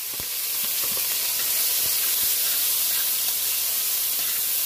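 Sliced bell peppers, onions and tomatoes sizzling in hot oil in a metal pot: a steady hiss of vegetables just added to the oil and starting to saute, with a few faint clicks.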